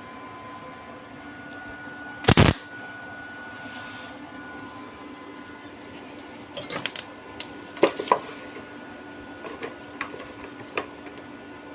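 Stainless steel bike frame being tack-welded to the engine piece. There is one short, loud weld burst about two seconds in, then several lighter metal clicks and clinks as the parts are handled.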